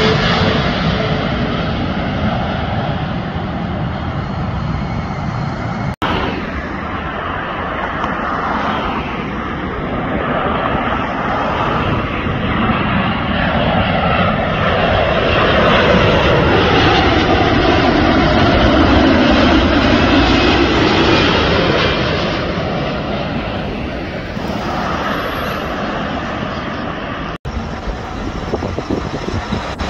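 Jet engines of airliners on final approach: a Boeing 777-300ER briefly, then after a sudden cut a Boeing 787-9 Dreamliner approaching and passing low overhead, its steady jet roar growing loudest mid-way with its tone sweeping down and back up as it passes. Near the end another sudden cut brings in the next approaching airliner, an Airbus A380.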